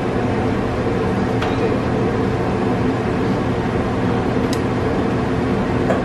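Steady mechanical hum of restaurant kitchen equipment, with a couple of faint light clicks.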